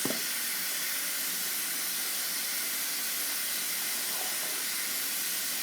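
Sink tap running at full flow, a steady hiss of water pouring into the basin, with a short knock right at the start.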